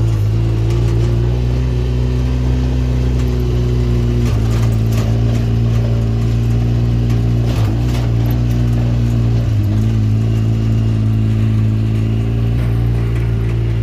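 Motor engine running steadily, with its pitch dipping and shifting briefly a few times.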